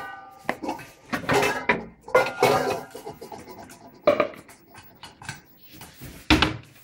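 Kitchen containers and dishes clattering as a bowl is taken out of a cupboard: a ringing clink at the start, a run of knocks and rattles, and one heavy knock near the end.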